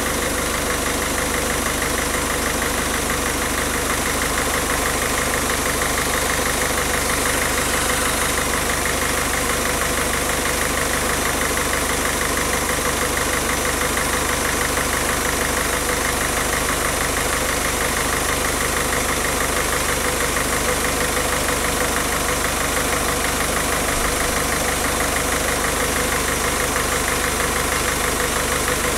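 Peugeot 407 1.6 HDi diesel engine idling steadily while running on injection-cleaning fluid fed through a closed circuit. A hiss ('fshfsh') comes from the turbo, because the turbo hose is left disconnected.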